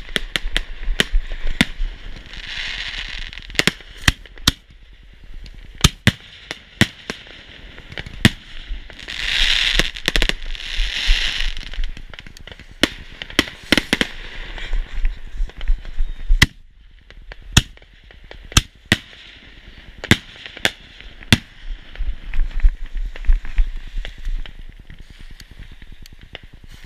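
Fireworks going off: a string of sharp bangs and pops throughout, with two stretches of loud hiss, about two seconds in and again from about nine to twelve seconds.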